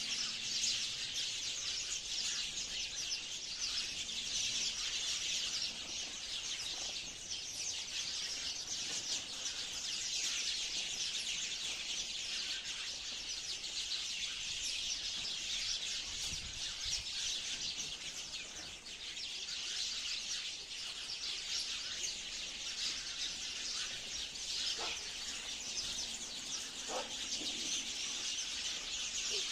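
A flock of sparrows chirping in a dense chorus, many short calls overlapping without a break.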